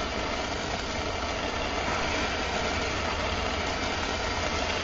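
Handheld MAPP gas torch burning with a steady hiss of flame, heating the spine of a steel knife blade for differential tempering.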